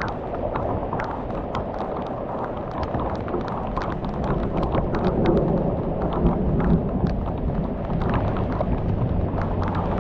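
Heavy thunderstorm rain pouring, with many sharp drops tapping on a hard surface close by. A low rumble of thunder swells through the middle.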